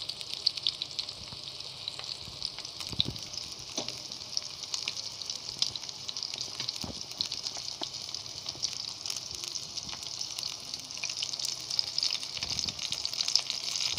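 Fish pieces coated in masala and egg white shallow-frying in hot oil, a steady sizzle with fine, continuous crackling. A couple of soft knocks come about three to four seconds in.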